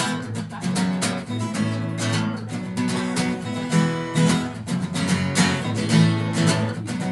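Acoustic guitar strummed in a steady rhythm through changing chords: the instrumental lead-in to a song, before the singing begins.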